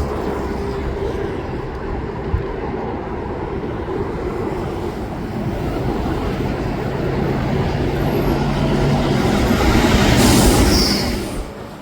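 A train passing on the line, a steady rumble that swells to its loudest near the end and then drops away suddenly.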